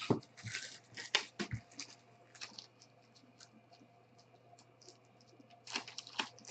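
Trading cards being handled and slid against one another, a run of short scratchy rustles in the first couple of seconds and another brief run near the end, over a faint steady hum.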